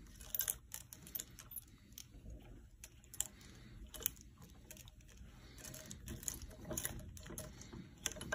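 Faint, scattered clicks and light metal taps of brass pipe fittings and a small wrench being handled against a cast-iron valve bonnet.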